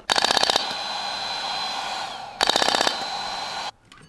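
Radial shockwave therapy applicator firing rapid runs of clicks into gel-covered skin, in two short bursts about two seconds apart. Between and after the bursts the machine keeps up a steady whir with a thin high whine, which cuts off suddenly near the end.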